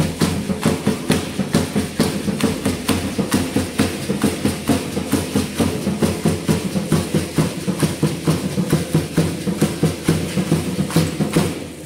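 Drum beating a steady, quick rhythm for a Guadalupanos danza, about three or four beats a second, which cuts off near the end.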